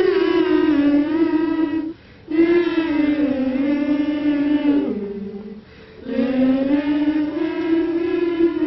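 Gospel singing in long, held notes: three drawn-out phrases, with short breaks about two seconds in and again about five to six seconds in, the middle phrase sliding down in pitch at its end.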